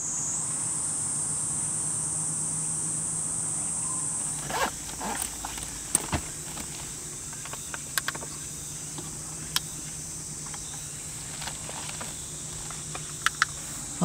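Crickets trilling in a steady, high-pitched drone, over a low steady hum, with scattered light clicks and knocks from about four and a half seconds in.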